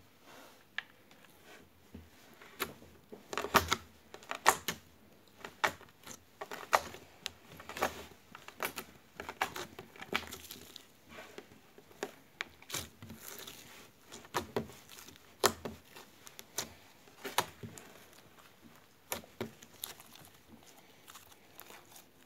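Slime being stretched, pulled apart and squeezed by hand, giving irregular wet, sticky pops and clicks.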